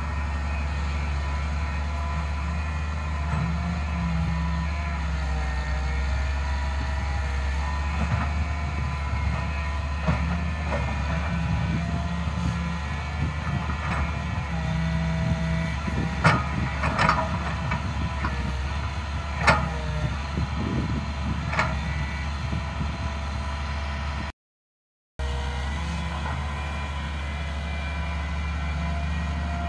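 Daewoo 130W-V wheeled excavator's diesel engine running steadily under working load, with a steady hydraulic whine over the engine drone. A few sharp knocks come about halfway through, and the sound cuts out for a moment near the end.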